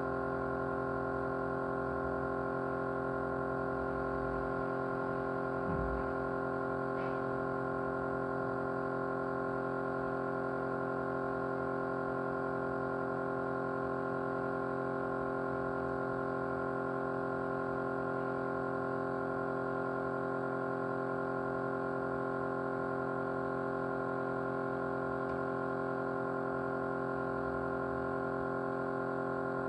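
Small motor running steadily with a vibrating hum made of many steady tones, unchanging throughout; a brief low thump about six seconds in.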